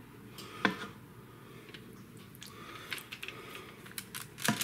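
Kitchen handling sounds from spoon and food work at a counter: scattered light clicks and ticks, with a sharp knock about half a second in and another just before the end.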